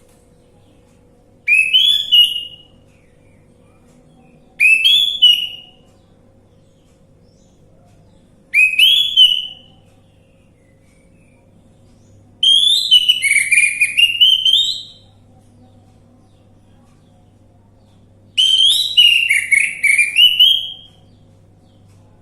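Orange-headed thrush singing: five short, whistled song phrases a few seconds apart, the last two longer and more varied. A faint steady hum runs underneath.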